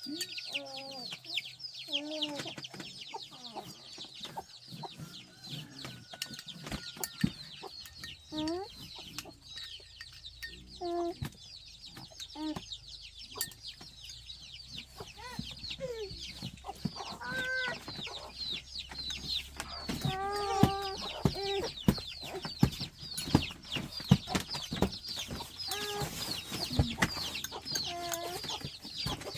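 Chickens clucking, over dense, high-pitched chirping.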